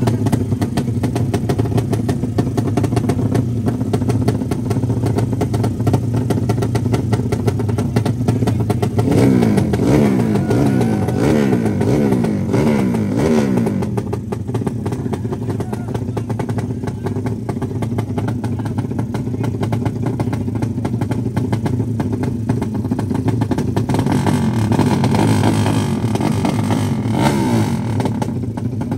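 Suzuki Satria FU drag-race motorcycle engines running at the start line, revved up and down repeatedly in the middle.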